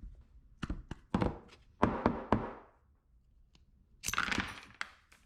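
Sharp clacks and knocks of small steel parts being handled and pulled apart: a motorcycle starter freewheel (sprag clutch) being opened up. A rougher rattling scrape follows near the end. The freewheel is worn, with a damaged spring and pitted race.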